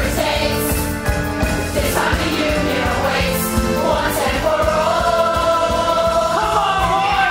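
Large youth ensemble singing a musical-theatre chorus in unison over loud band accompaniment with a steady beat. The voices build to one long held note through the second half.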